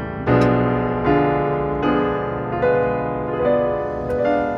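Background piano music: slow sustained chords, a new chord or note struck roughly every second.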